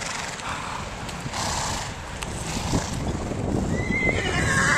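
Horses of a loose herd moving about, with hoofbeats and low thuds on the ground. Near the end a horse whinnies: a high call that wavers up and down.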